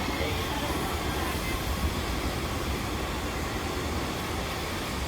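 Heritage railway train running, a steady low rumble with no clear rhythm.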